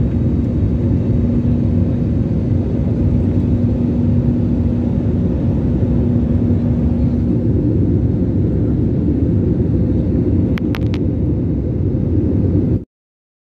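Steady drone of an airliner cabin in flight, engine and airflow noise with a constant low hum, heard from a passenger seat. It cuts off abruptly near the end.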